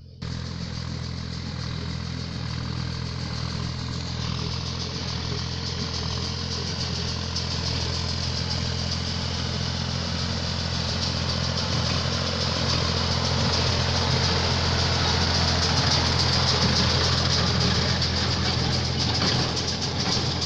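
Ford farm tractor engine running steadily while it pulls a small square baler, with the baler's mechanical clatter over the engine; the sound grows gradually louder as the machines come closer.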